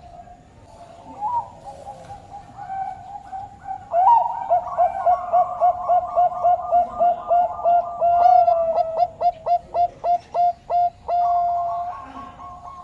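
Bangkok turtledove, the Thai-bred zebra dove kept for song, singing a long run of rapid, evenly spaced cooing notes, about three a second, starting about four seconds in and ending near the end. A steady tone runs underneath.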